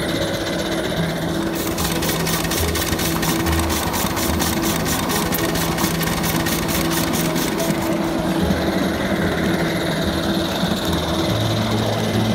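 Live-steam ride-on scale Mogul locomotives running double-headed with riders aboard: a steady mechanical running sound, with a rapid even beat of about six a second through the middle.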